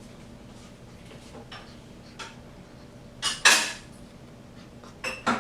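A handful of short taps and scrapes of a pen on a writing surface while drawing, the longest and loudest about three and a half seconds in.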